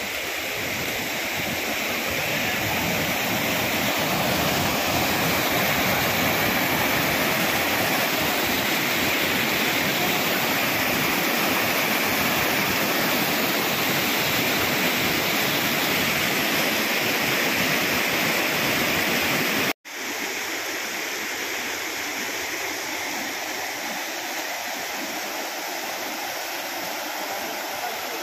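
Steady, loud rush of water in torrential monsoon rain. It cuts out for an instant about twenty seconds in, then resumes a little quieter.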